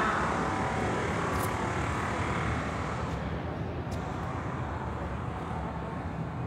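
City street traffic: a vehicle passes close and fades away over the first few seconds, over a steady low rumble of traffic.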